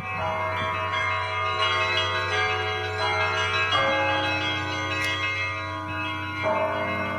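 Russian Orthodox monastery church bells ringing: several bells struck in turn, each new strike adding ringing tones that overlap and hang on, over a low steady hum from a large bell.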